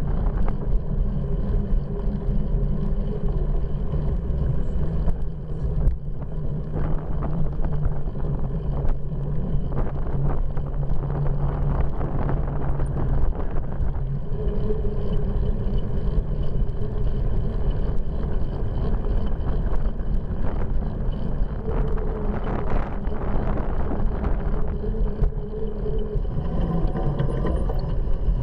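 Bicycle riding along a paved path, heard through a handlebar-mounted camera: steady rumble from the tyres, with many small rattles and knocks from bumps and a little wind on the microphone.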